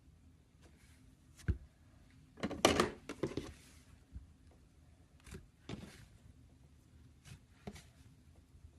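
Slime being squeezed and poked by hand: scattered soft clicks and pops, with a longer, louder crackly squish about two and a half seconds in.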